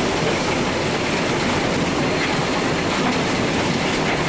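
A small steam train running along the track, heard from an open passenger wagon: a steady rolling noise of the wheels on the rails.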